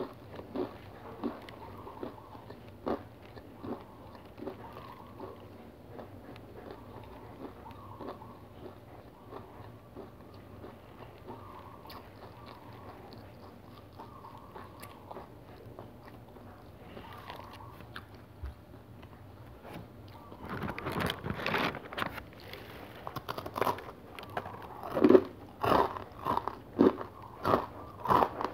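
Chewing a crunchy whole-grain cereal bar, with soft crunches about once a second. About twenty seconds in, a fresh bite brings louder, crisper crunching.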